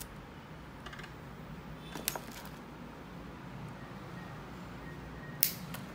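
Light metallic clicks and clinks from a wire binding coil being handled and set down: a few scattered taps, the sharpest about five and a half seconds in.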